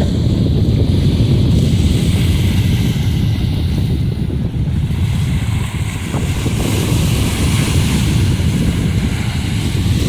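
Wind buffeting the microphone with a steady low rumble, over the wash and hiss of small sea waves breaking on a sandy beach.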